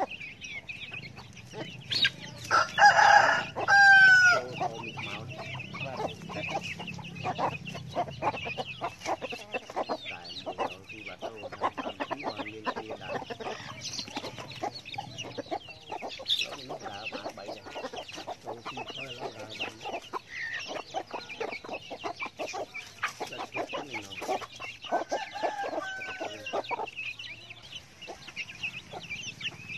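Chickens: a rooster crows once, loudly, about three seconds in, with the call falling away at the end. Chicks peep and hens cluck throughout, and there is a second drawn-out call near the end.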